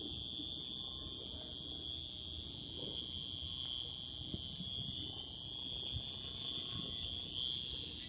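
Cricket singing: one continuous, high-pitched trill held at a steady pitch without a break.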